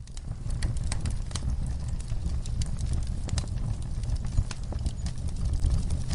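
Wood fire in a fireplace crackling, with irregular sharp pops and snaps over a low steady rumble.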